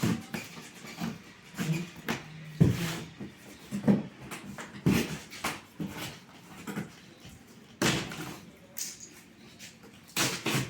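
Packing carton being tugged and worked loose around a new solar split AC unit where it is stuck at the bottom: irregular knocks, thumps and scraping, with the sharpest knocks about 2.5, 4 and 8 seconds in.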